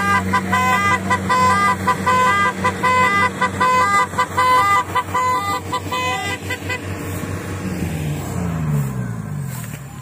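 Rice combine harvester running with a steady engine hum, over a repeating series of high, beeping tonal notes. The notes stop about seven seconds in, and the engine hum then falls in pitch near the end.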